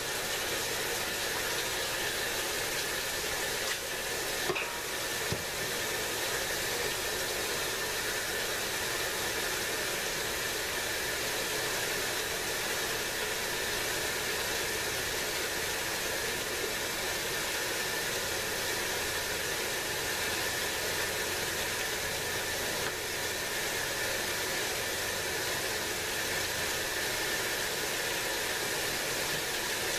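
Washing machine filling with water: a steady hiss of water rushing into the tub, with a couple of small knocks about four to five seconds in.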